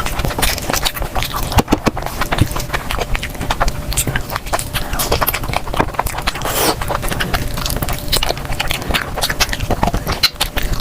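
Close-miked eating sounds: chewing and mouth noises, a dense run of quick, irregular clicks and smacks.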